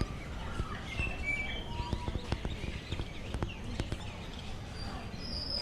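Birds chirping, short high whistled notes and brief gliding calls, over a steady low background noise. A run of sharp clicking taps comes through the middle.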